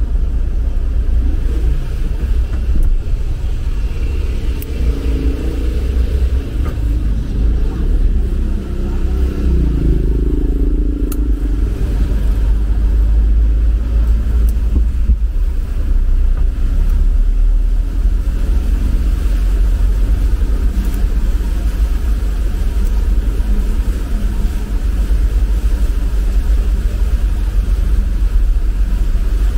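Steady low rumble of an Isuzu Traviz truck driving slowly through a flooded street, engine and road noise together. A louder, wavering mid-range sound rises and falls for several seconds around the middle.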